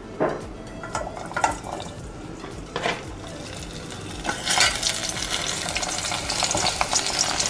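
Strips of food dropped into hot oil in a stainless steel pot, with a few light taps against the pot, then the oil sizzling as they fry, growing louder from about four seconds in.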